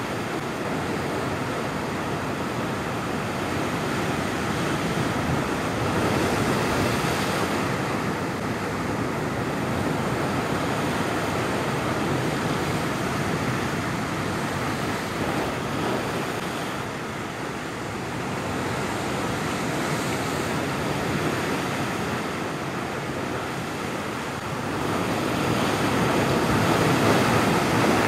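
Ocean surf breaking and washing against rocks, a continuous rushing that swells louder a few times, most strongly near the end as a wave bursts into spray.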